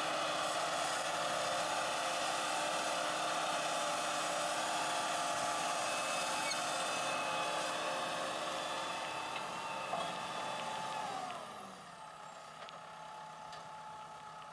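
Tractor engine running steadily under load while pulling a ditcher blade through soil. A little past eleven seconds in, the engine note falls and the sound drops off noticeably, with a brief knock just before.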